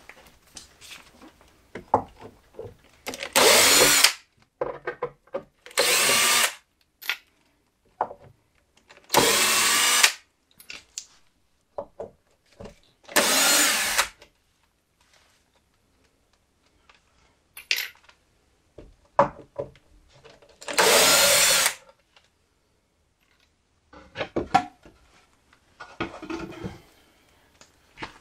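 Cordless drill backing screws out of timber boards in five short runs of about a second each, the motor's pitch rising at the start of each run. Quieter knocks and clicks of handled wood and screws come between the runs.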